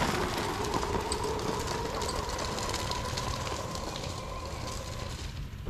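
Ubco 2x2 electric motorcycle with its front and rear hub motors riding along a gravel dirt road: a faint steady motor whine over crackling tyre and gravel noise, easing off gradually.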